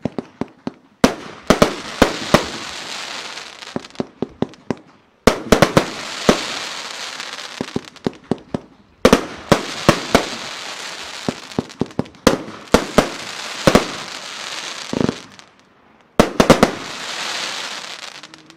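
Blackboxx Fireworks Xtravagant firework going off in four salvos. Each salvo opens with a quick run of sharp bangs, then a long crackling hiss from the bursting stars that slowly fades away.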